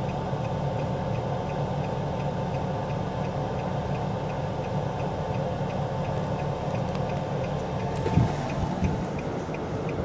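Vehicle cabin sound: a steady low engine hum with a light, even ticking about two or three times a second. A faint high tone in the background stops near the end.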